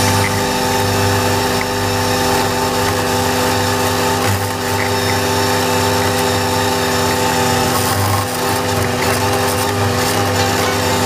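Valtra A93 tractor's diesel engine running steadily under load, driving an Agrimaster KP2600 flail mower through grass, with the mower's rotor and driveline adding a steady whine and rush.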